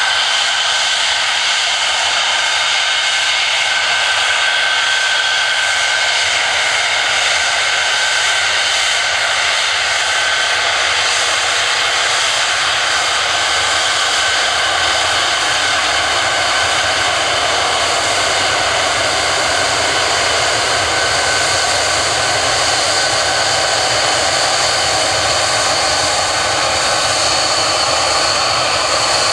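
Saab AJS-37 Viggen's Volvo RM8A afterburning turbofan running at taxi power: a steady, loud jet whine with high tones over the engine noise. A deeper rumble builds in about halfway through.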